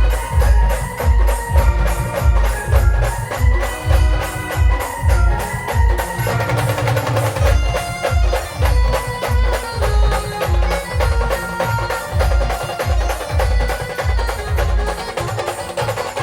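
A folk band playing an instrumental passage of a devotional song: a sustained melody over heavy, fast drum beats, about three a second.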